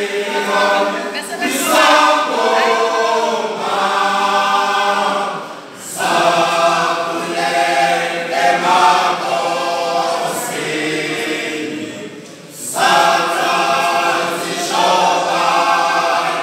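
Male isicathamiya choir singing unaccompanied in harmony: three long sung phrases with short breaks about six and twelve seconds in.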